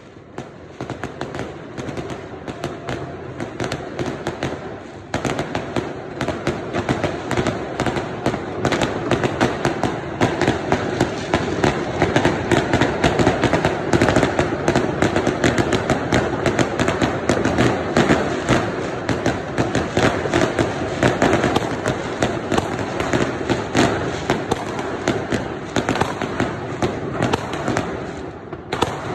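Many fireworks and firecrackers going off at once across the city: a continuous dense crackle of bangs and pops that grows louder about five seconds in.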